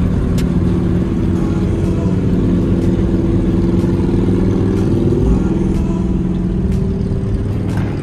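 A motor vehicle running steadily on the road: an engine drone with road rumble underneath and its pitch drifting slightly.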